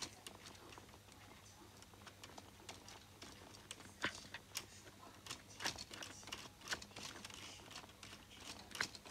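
Faint, irregular clicks and light taps of plastic LEGO Technic crane parts being handled, growing more frequent about halfway through.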